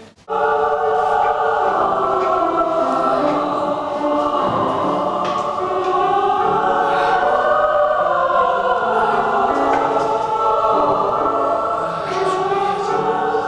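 A choir singing slow, held chords. It comes in suddenly just after a moment's silence at the start.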